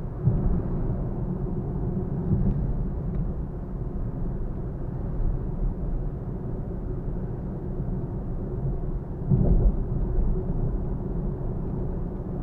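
Nissan Fuga 370GT (VQ37VHR V6) on the move: a steady low rumble of road and engine noise with a faint steady hum above it, swelling louder just after the start and again about nine seconds in.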